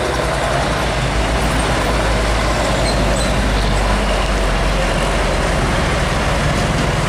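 Diesel truck engines running as heavy trucks pass on a road, with a steady deep engine drone and road noise throughout.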